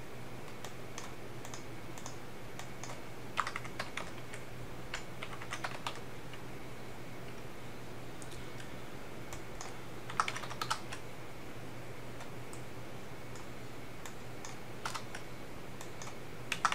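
Typing on a computer keyboard: a few short clusters of key clicks with pauses between them, over a faint steady low hum.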